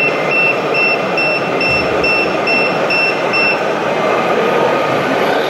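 Reversing beeper of a radio-controlled model truck, a steady repeating beep about twice a second that stops about two-thirds of the way through, over constant background noise.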